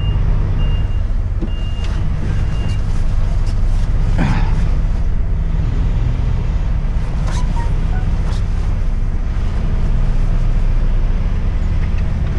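Diesel engine of an articulated lorry running steadily as it manoeuvres into a loading dock, with the reversing alarm beeping for the first few seconds. About four seconds in there is a brief sound sliding down in pitch.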